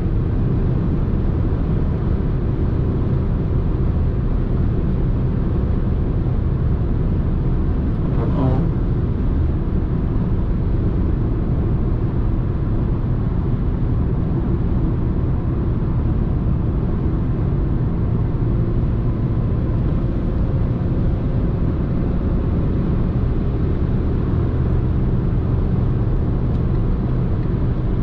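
Renault Clio IV's 1.2 TCe turbocharged four-cylinder petrol engine cruising at highway speed, with steady road and wind noise. A brief falling tone sounds about eight seconds in.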